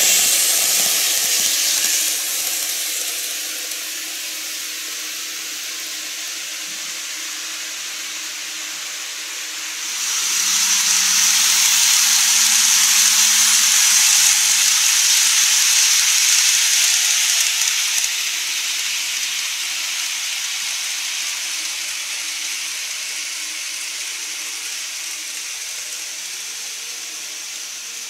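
N-gauge model trains (Keikyu 1000-series models) running on the layout track, making a steady hissing whir of wheels on rail and motor. The sound drops after about two seconds, swells again as a train passes about ten seconds in, and then dies away slowly.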